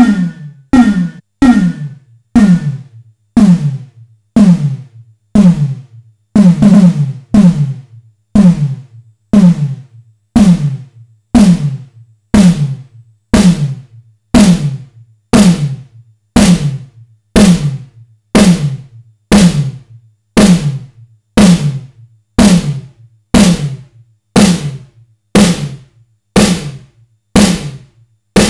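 Simmons SDS7 hybrid analog/digital drum module playing a synthesized snare, triggered steadily about once a second while its settings are changed, with a short reverb added. Each hit is a low tone that drops in pitch under a burst of noise. A high ringing tone on the first few hits drops out after about two seconds.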